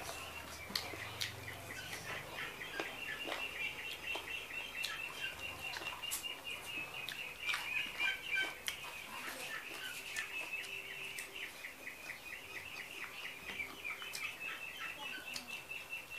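Birds chirping steadily in the background, a fast unbroken run of high chirps, with scattered sharp clicks and smacks from fingers pulling apart roast chicken.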